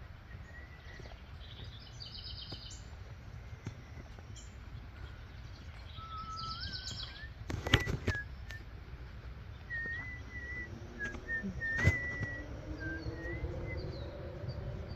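Birds chirping and singing outdoors: rapid high trills and a string of short whistled notes, over a steady low rumble. Two sharp knocks, about eight and twelve seconds in, are the loudest sounds.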